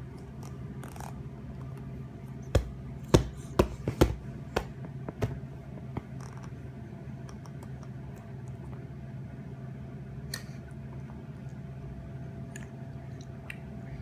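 A run of about eight sharp taps or knocks in quick, irregular succession over a few seconds, over a steady low hum.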